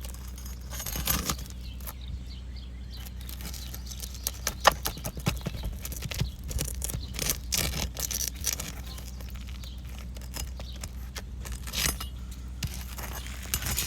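Metal roof snake working a roofing nail loose from under asphalt shingles: irregular scraping and metallic clinks, with one sharp click about four and a half seconds in.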